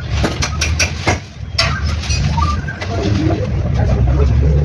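An engine running steadily with a low hum that grows louder over the last couple of seconds, with a few irregular metallic clinks in the first second or so.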